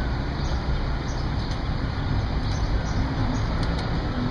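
Steady city street traffic noise: a continuous low rumble under an even hiss, with no single event standing out.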